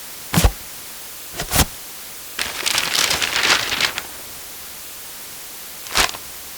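Book and paper handling: a soft knock, then two more about a second and a half in, then a second and a half of paper rustling, and one more knock near the end, over a steady hiss.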